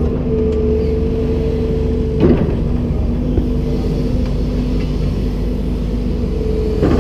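Komatsu PC290-10 excavator running, its diesel engine and hydraulics giving a steady low rumble with a steady whine. About two seconds in and again near the end, the whine briefly dips in pitch with a short louder jolt.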